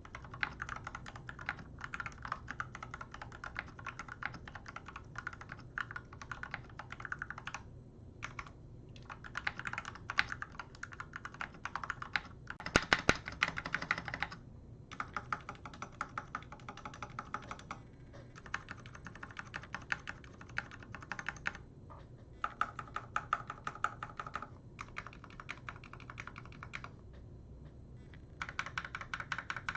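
Typing on a HAVIT 89-key tenkeyless mechanical keyboard fitted with lubed Jixian Red linear switches: a steady clatter of keystrokes in runs with short pauses, and a louder flurry of strokes about thirteen seconds in.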